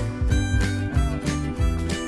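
Background music: an upbeat tune with guitar and a steady beat.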